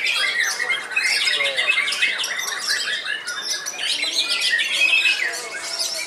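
Many caged white-rumped shamas singing at once in a contest: a dense, unbroken chorus of rapid overlapping chirps, whistles and trills.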